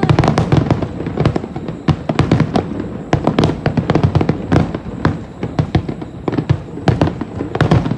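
Fireworks display: aerial shells bursting in quick succession, a dense run of many bangs and crackles overlapping, several each second.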